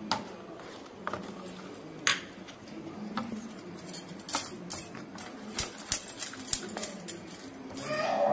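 Metal spoon stirring thick semolina and gram-flour batter in a stainless steel bowl, with irregular clicks and scrapes of the spoon against the bowl's side. The batter is stirred gently so the besan mixes in without lumps.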